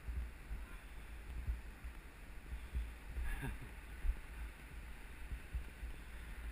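Mountain bike riding fast down a dirt forest trail: uneven low rumble of wind buffeting the action camera's microphone, mixed with the bike jolting over the ground. A brief falling sound about three and a half seconds in.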